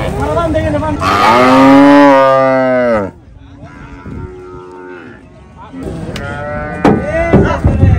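Cow mooing: one long, loud moo starts about a second in, lasts about two seconds and drops in pitch as it ends. A few sharp knocks follow near the end.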